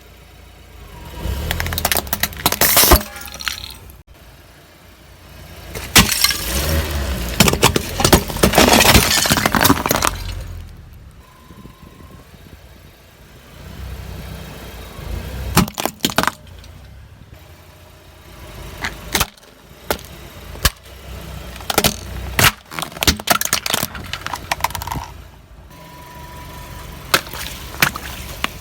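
Car tyres rolling over and crushing objects: several bursts of crunching with sharp cracks and pops, over the low hum of the car.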